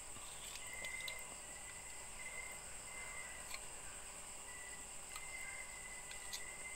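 Faint insect chorus: a steady high-pitched buzz with a lower chirping trill that comes and goes. A few light clicks of a metal spoon against the bowl sound as she eats.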